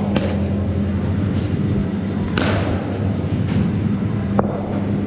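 About half a dozen sharp knocks of cricket balls striking bat, net or mat in an indoor net hall, the loudest about two and a half seconds in, over a steady low hum.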